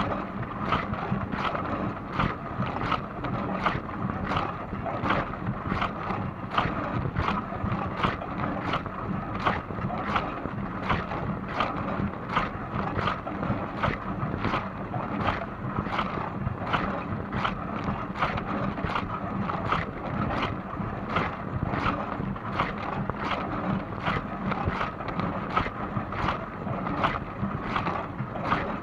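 Dishwasher running, with water swishing inside over a steady hum. The swish repeats evenly, about one and a half times a second.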